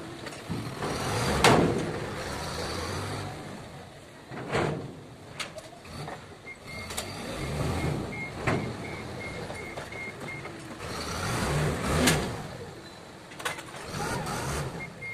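Forklift engine running, its warning beeper pulsing in short even beeps part of the time, with several loud metallic clanks and knocks.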